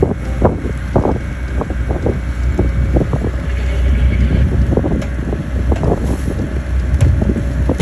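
Wind buffeting the microphone hard, over the steady low rumble of a powered watercraft moving at speed, with irregular crackling knocks throughout.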